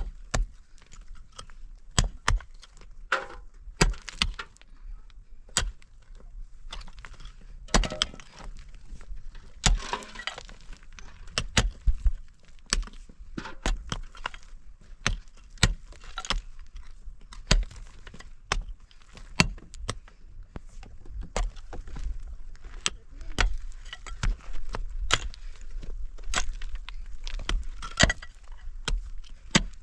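Irregular sharp knocks and clinks, a few each second, over a steady low rumble.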